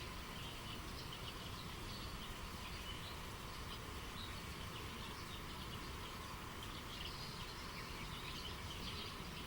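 Steady rushing of a spring-fed river with small birds chirping over it, short calls scattered throughout.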